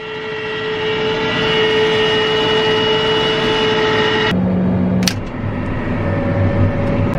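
John Deere tractor running, heard from inside its cab while pulling a corn planter, with a steady high whine over the engine. About four seconds in, the sound changes abruptly to a lower engine rumble, with one sharp click a little under a second later.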